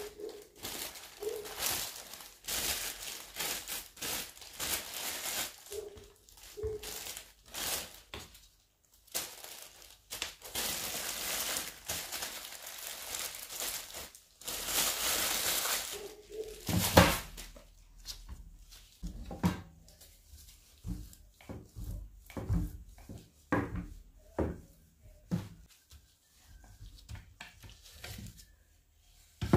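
Plastic cling film crinkling and rustling as it is pulled off a block of pastry dough, with one loud thump about 17 seconds in. After that, a string of short knocks and strokes as a wooden rolling pin rolls the dough out on a wooden board.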